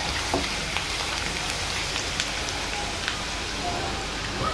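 Chopped onion frying in hot oil with cumin, mustard seeds and curry leaves in a kadhai: a steady sizzle with scattered crackles as the onion browns.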